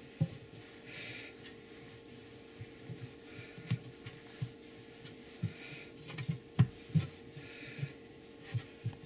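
Hands rolling and pressing a log of potato lefse dough on a wooden cutting board: soft, irregular thumps and rubbing, the loudest thump about two-thirds of the way in, over a faint steady hum.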